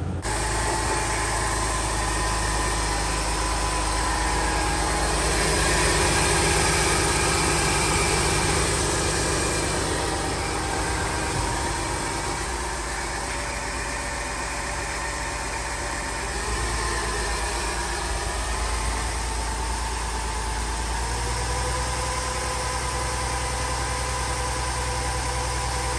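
2009 Mercedes-Benz ML350's V6 engine idling steadily, running again after a new fuse box replaced the burnt-out one that had kept it from starting.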